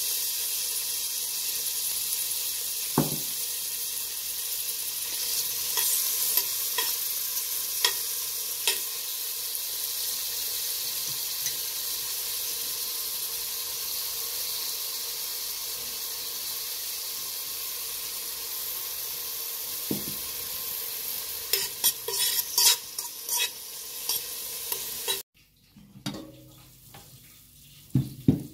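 Sliced onions frying in hot oil in a stainless steel pot: a steady sizzle starting as they hit the oil, with a cluster of sharp crackles and clicks near the end. The sizzle cuts off abruptly a few seconds before the end, leaving only faint clicks.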